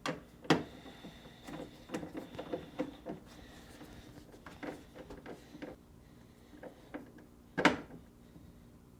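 Small clicks and knocks of hardware and handling on a Whirlpool refrigerator's freezer door, in an irregular run over the first few seconds, then a single loud knock about seven and a half seconds in.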